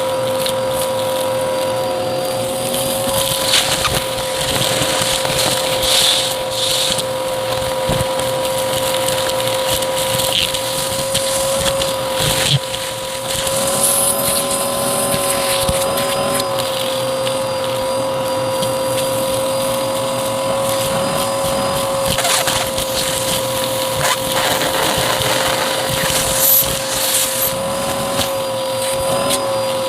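Vacuum cleaner running with a steady, high motor whine, with scattered crackles and clicks of debris being sucked up.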